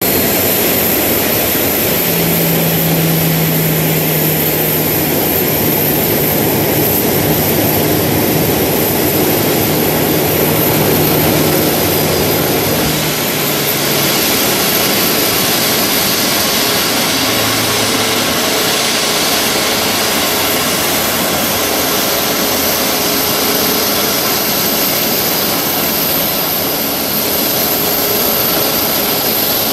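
Boeing 737 MAX 8's CFM LEAP-1B turbofan engines running at taxi power as the airliner rolls in to its stand: a steady, loud jet rush with a thin high whine. A lower hum underneath stops about halfway through.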